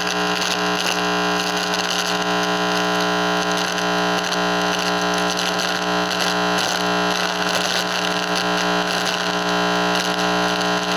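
Steady, loud electronic buzz and static from an RF receiver's audio output: a dense drone of many fixed tones with crackly noise on top, the sound of the receiver picking up electrical interference.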